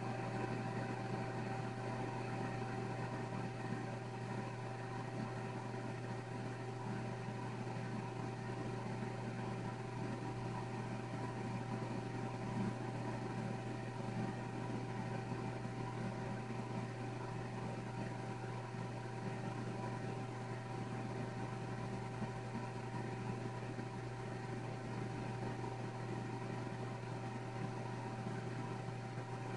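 A steady machine hum with a few held tones over a soft hiss, unchanging throughout.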